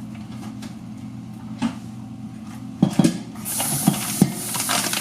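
Kitchen cooking sounds: a few sharp knocks and clinks of pans or utensils, then a steady hiss starts about three and a half seconds in and keeps going.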